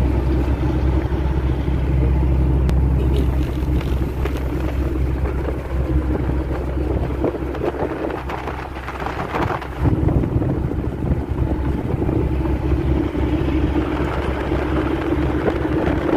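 A motor vehicle driving on a highway: a steady low engine drone mixed with road noise.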